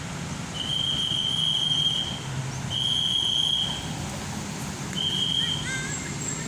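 A whistle blown in three long blasts at one steady high pitch, the last one shorter, over the low rumble of a vehicle engine running.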